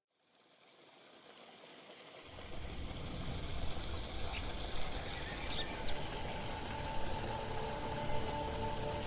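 Water running and trickling into a small garden pond, fading in from silence and filling out about two seconds in, with a few short bird chirps.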